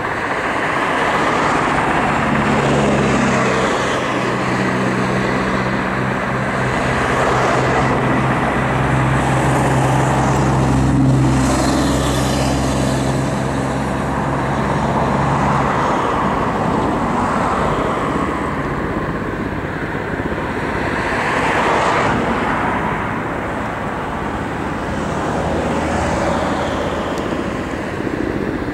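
Kamov Ka-52 Alligator attack helicopter in flight: a steady whir and drone from its coaxial rotors and turbine engines. The tone shifts slowly as the helicopter manoeuvres. A low hum within it drops out about sixteen seconds in.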